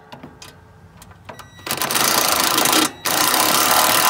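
Cordless impact driver hammering bolts down into the mower deck's sheet-metal belt guard. A few light clicks come first, then two bursts of rapid hammering: the first starts a little before halfway and lasts about a second, and the second starts about three seconds in after a brief pause.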